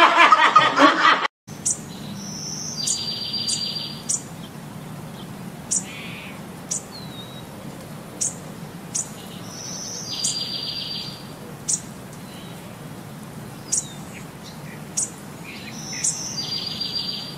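Music and voices with laughter cut off about a second and a half in. Then a small songbird chirps with short, sharp high notes scattered throughout, and three times gives a longer call: a high note followed by a buzzy trill about a second long.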